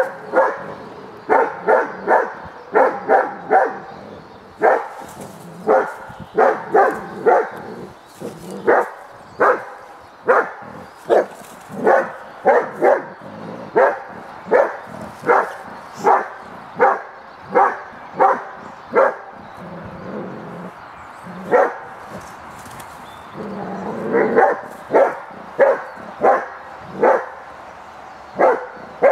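A dog barking over and over at a sled set out on the path, about one to two barks a second, with a brief lull about two-thirds of the way through.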